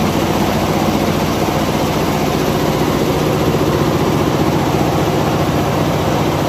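Richpeace multi-head computerized embroidery machines stitching, with a steady mechanical clatter of the needle heads in a fast, even rhythm.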